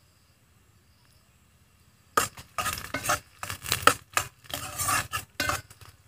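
A metal spoon scraping and clinking against a frying pan while sliced onions are stirred. The quick, irregular strokes start about two seconds in.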